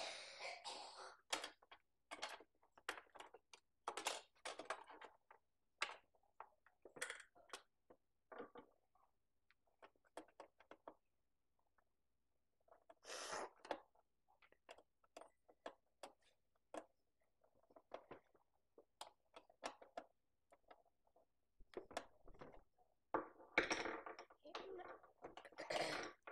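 Scattered light clicks, taps and rustles of small plastic toy parts and a small screwdriver being handled, as a battery cover is screwed back onto a toy; a denser patch of handling noise comes near the end.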